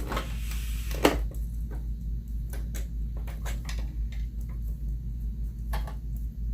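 Scattered clicks and light knocks from a sewing machine and fabric being handled, with one sharper knock about a second in, over a steady low hum.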